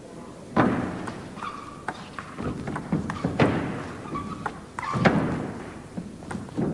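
Table tennis rally: the ball clicking irregularly off bats and table, with a few heavier thuds among the strokes.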